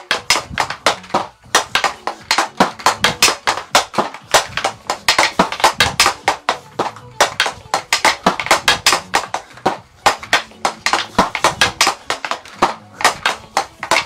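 Hockey stick blade and puck clacking on a plastic dryland tile in quick passing and stickhandling, a rapid run of sharp knocks, several a second.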